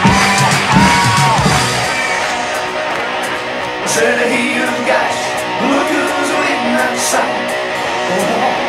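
Glam rock band playing the song between sung lines, with electric guitar and bass guitar.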